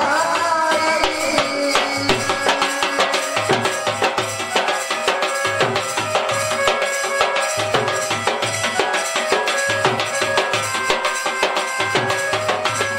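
Folk music led by a double-headed barrel drum (dhol) beaten in a fast, steady rhythm, with held melody notes sounding over the drumming. A singing voice trails off about a second in.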